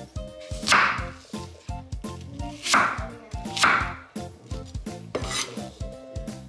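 Kitchen knife slicing through a crisp apple onto a wooden cutting board: four separate cuts, each a short rasp, spread over about five seconds.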